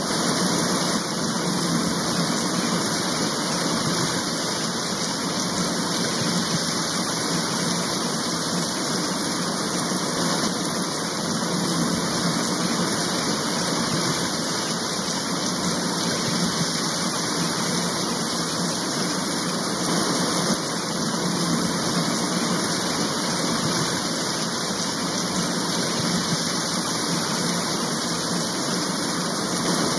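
Steady, unbroken rain noise, an even wash of sound with no separate drops or other events standing out.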